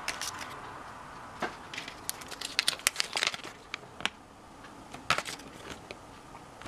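Folded paper leaflet from a Kinder Surprise capsule being unfolded and handled. It gives quiet crinkling with runs of sharp little crackles, thickest a couple of seconds in and again about five seconds in.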